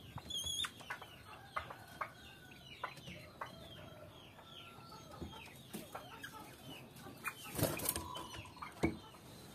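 Poultry calling in the background: a steady run of short, high, falling chirps with occasional clucks, and two louder calls near the end.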